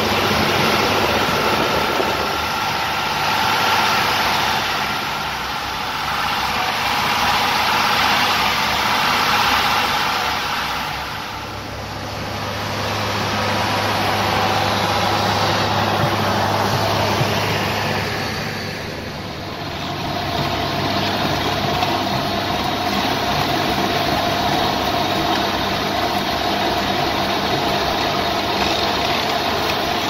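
John Deere 6910 tractor's six-cylinder diesel engine running steadily under load while pulling a plough through hard ground. The sound swells and dips and changes character twice as the listening position shifts.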